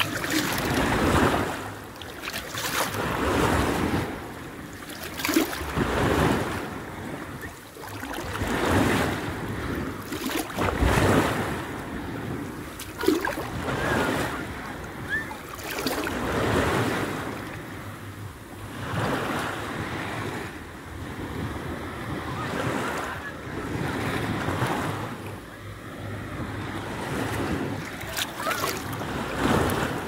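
Small sea waves lapping and splashing close to the microphone, swelling and fading about every two seconds, with wind rumbling on the microphone.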